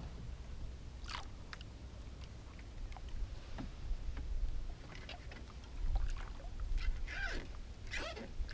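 Water splashing and sloshing around a small outrigger canoe as it is paddled, in short irregular splashes over a steady low rumble.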